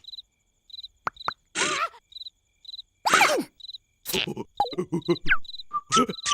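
Cartoon soundtrack: a cricket-like chirp repeats about twice a second in the background. Over it come short squeaky cries with sliding pitch, and near the end a quick run of comic pops and hits.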